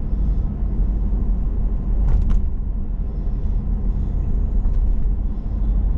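Car being driven along a sealed road, heard from inside the cabin: a steady low rumble of engine and tyres, with one short sharp sound about two seconds in.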